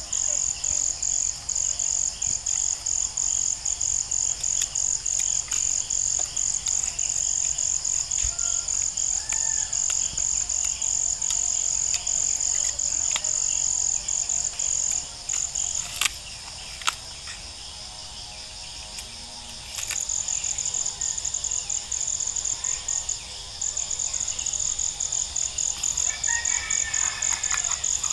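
An insect trilling loudly in a fast, even pulse. It stops for several seconds about halfway through and pauses again briefly a little later. There are a couple of light knocks in the middle.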